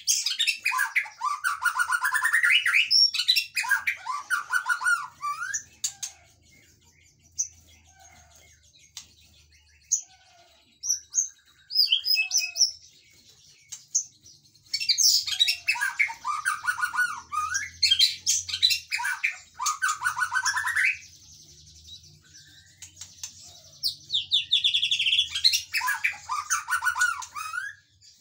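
White-rumped shama singing: three long bursts of loud, rapid, varied phrases full of sweeping notes, with quieter spells of scattered short notes between them.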